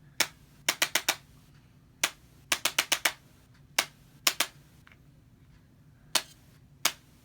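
Handheld chiropractic adjusting instrument firing sharp clicks, some single and some in quick runs of four or five, as it is worked down the paraspinal muscles of a dog's back.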